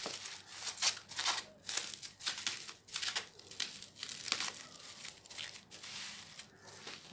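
Plastic bubble wrap crinkling and rustling in irregular crackles, about two a second, as hands peel it off a small cardboard box.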